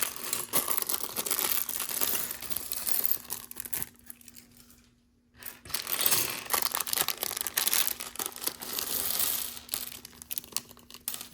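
Plastic bag of Lego pieces being handled and torn open: crinkling plastic with small plastic bricks clinking inside, a short lull a little before halfway.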